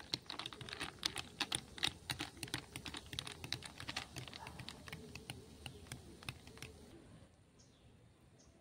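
A metal straw stirring ice in a glass drink, with rapid, irregular clinks and ticks of ice against the glass and straw. The clinking stops about seven seconds in.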